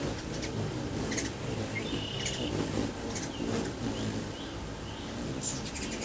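Hummingbirds at a nectar feeder giving short, high chips and twitters every second or so, with one brief steady high note about two seconds in, over a steady low hum.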